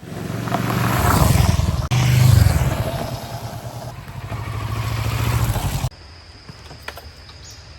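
Motorcycle engine running, the Kawasaki Versys 650's parallel twin, rising and falling with the throttle. It cuts off suddenly about six seconds in, leaving a faint high steady tone and a few light ticks.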